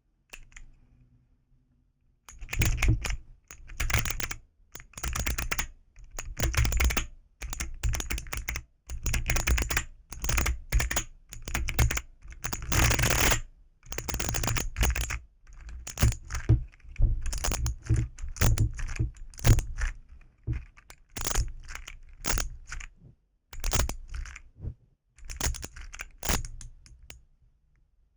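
Keycaps of a keyboard fidget toy clacking in short runs of rapid presses, starting about two seconds in and going on with brief pauses between runs.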